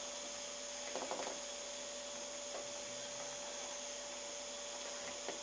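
Steady electrical hum with a background hiss, broken by a few faint, short sounds about a second in and again near the end.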